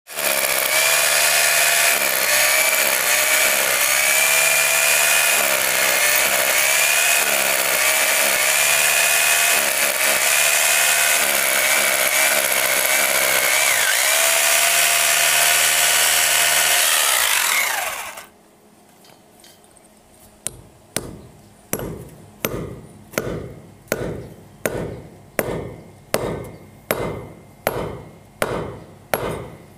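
Electric hammer drill boring into concrete, its motor pitch wavering under load, then stopping about 18 seconds in. After a short pause, a hammer strikes steel rods set in the drilled holes in an even series of ringing blows, a little under two a second.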